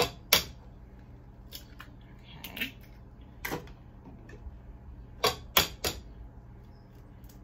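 Eggs being cracked: sharp taps of eggshell against the rim of a mixing bowl, a pair at the start and a quick run of three about five seconds in.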